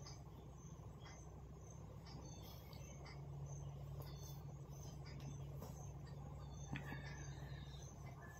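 Quiet room tone: a low steady hum that grows stronger about three seconds in, with faint, scattered high-pitched chirps and a single soft click about seven seconds in.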